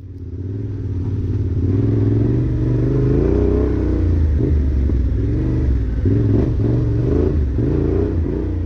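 Motorcycle engine revving up and down, heavily muffled so that only its low rumble and wavering tones come through.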